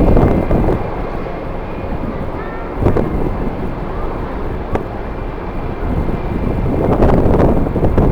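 Strong gusting wind buffeting the microphone, a heavy low rumble that swells in the first second and again near the end. A faint steady high whine runs underneath.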